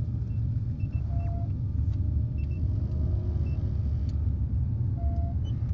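Sci-fi spaceship cockpit sound: a steady low engine rumble with short electronic bleeps from the instruments, and a falling chirp into a short tone about a second in.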